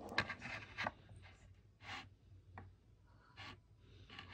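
Knife blade scraping across a hard, glitter-dusted surface in a series of short, faint strokes, about six in all, the first and longest being the loudest.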